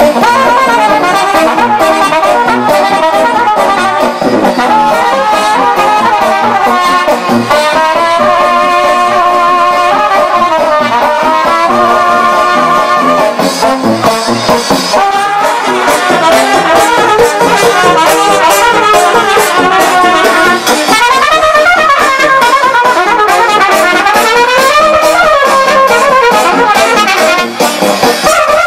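Serbian brass band (trubački orkestar) playing a dance tune: trumpets and tubas carrying the melody over a steady drum beat.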